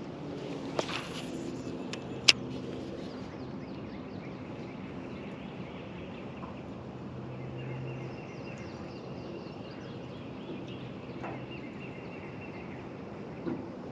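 A fishing rod cast: a short swish as the line pays out, then a sharp click of the spinning reel's bail closing a moment later. After that comes a steady low hum with faint bird chirps.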